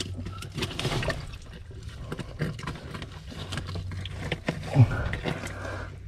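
A hand and arm scraping and rummaging inside a wet, barnacle-crusted rock crevice, with many small clicks, scuffs and wet sounds against the rock, shells and water. A short grunt of effort about five seconds in is the loudest moment.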